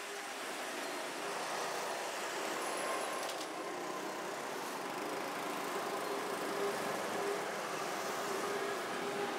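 Steady road traffic noise from passing vehicles, with a faint engine hum under it.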